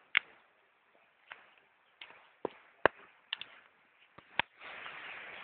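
Laundry flapping on a washing line in the wind: irregular sharp snaps of cloth, with a steady rush of noise setting in about four and a half seconds in.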